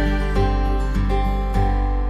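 Instrumental background music: a held low note under pitched notes that change about every half second.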